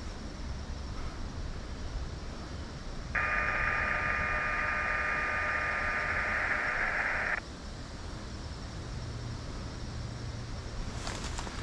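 Handheld two-way radio keyed open without speech: about four seconds of static hiss with a steady tone in it, starting about three seconds in and cutting off suddenly.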